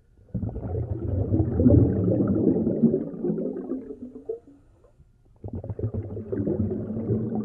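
Scuba diver's exhaled breath bubbling out of the regulator underwater: a low gurgling rumble lasting about four seconds, a short quiet gap, then a second exhalation starting about five and a half seconds in.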